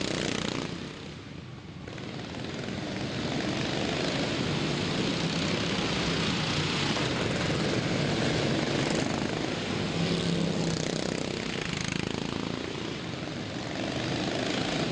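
Several near-stock riding lawn mower engines running hard in a race, dipping briefly about a second in and then swelling and holding steady as the pack comes round.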